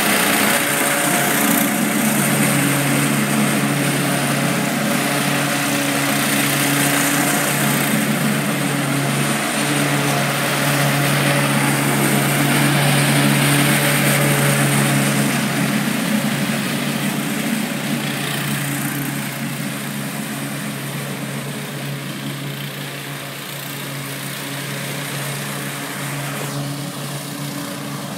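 Exmark Metro 48 walk-behind mower's engine running steadily while cutting grass, growing fainter in the second half as the mower moves away.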